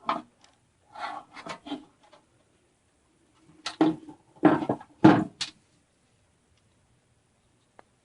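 Several short knocks and clunks as the furnace draft inducer motor and its parts are handled and set down, in two groups: about a second in, then a louder group around four to five seconds in.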